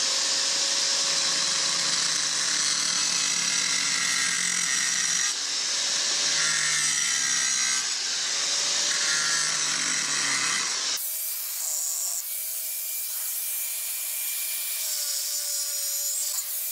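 Angle grinder cutting through an old clay drain pipe: a steady motor whine over the rasp of the disc in the fired clay. About eleven seconds in the sound turns thinner and a little quieter.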